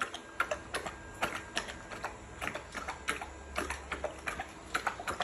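Newfoundland dog lapping water from a metal bowl: a steady run of wet laps, about three a second.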